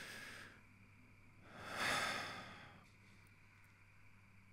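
A man breathing close to the microphone: an inhale trailing off about half a second in, then a slow, audible sigh out that swells and fades around two seconds in. A faint steady low hum sits underneath.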